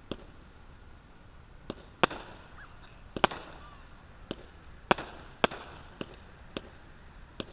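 A 200-gram consumer fireworks cake firing: a string of sharp shots at an uneven pace, roughly one to two a second, several with a short echo after them.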